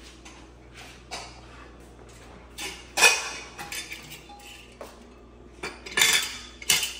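Steel pressure cooker being opened by hand: its metal lid clanks and clinks against the pot as it is worked free and lifted out, with a loud clank about three seconds in and a few more near the end.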